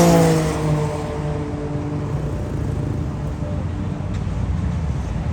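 A motorcycle passing by, its engine note falling in pitch and fading during the first second or so as it moves away, leaving a steady low rumble of traffic.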